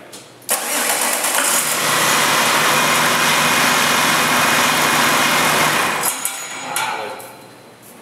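Heavy-duty diesel engine starting about half a second in, running steadily for about five seconds, then shut off and winding down.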